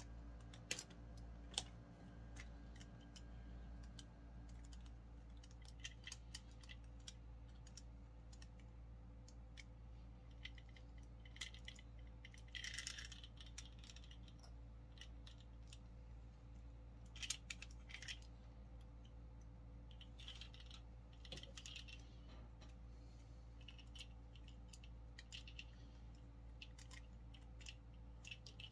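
Faint scattered clicks and light scrapes of small metal parts and tools as a tonearm pivot bearing is worked into place, with a sharper pair of clicks about a second in, over a steady low hum.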